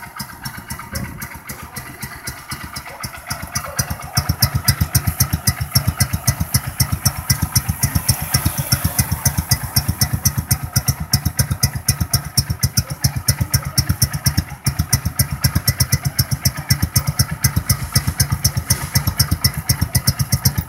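2015 Honda CG Fan motorcycle's single-cylinder four-stroke engine idling through an aftermarket Roncar 'estralador' sport exhaust, a steady, even beat of exhaust pulses. It gets louder about four seconds in, then holds steady.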